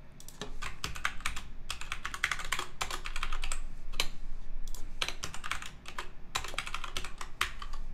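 Typing on a computer keyboard: irregular runs of quick key clicks with a few short pauses.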